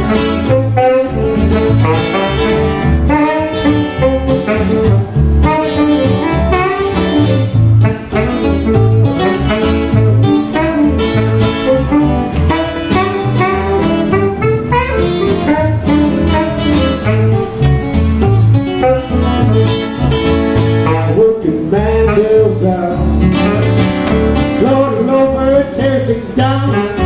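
Small acoustic band playing a steady shuffle with no singing: two acoustic guitars strumming a driving rhythm with a saxophone alongside.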